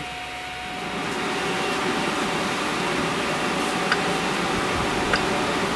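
Electric fan switched on, spinning up about a second in and then blowing steadily with an even rushing of air. Two faint clicks come near the middle and near the end.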